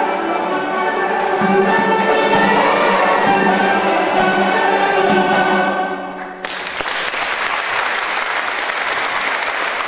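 Armenian folk instrument ensemble of kanuns and plucked lutes playing the closing bars of a piece and ending on a held chord that dies away about six seconds in. Audience applause breaks out suddenly right after and carries on.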